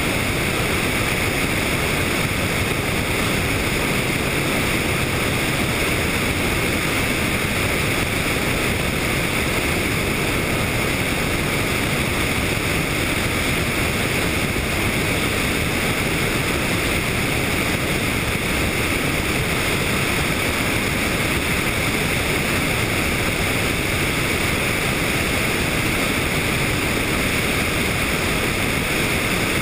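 Helicopter in flight: a steady, unvarying rushing noise of engine, rotor and passing air.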